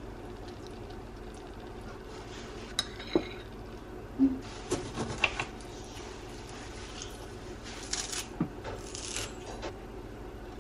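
A spoon scraping and clinking against a ceramic mug as cooked kitchari and toppings are spooned in: a few sharp clicks and short scrapes about three and five seconds in and again near eight seconds, over a steady low hum.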